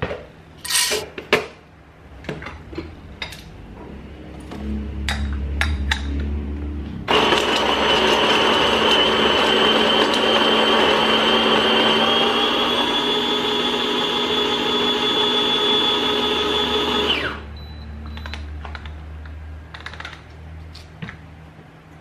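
Electric conical burr coffee grinder running for about ten seconds, grinding espresso beans into a portafilter on a timed grind: a loud, steady motor whine whose pitch rises slightly partway through and then cuts off suddenly. A few clicks and clatter come before it starts, and light clinks follow after it stops.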